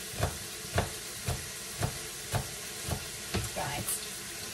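Mince browning and sizzling in an Instant Pot on sauté, with a utensil knocking and scraping against the pot about twice a second as the meat is stirred and broken up.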